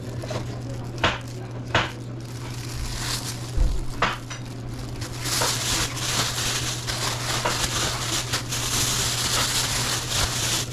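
Plastic bags rustling and crinkling as they are handled. There are a few sharp clicks in the first half, and dense continuous crinkling from about halfway through, over a steady low hum.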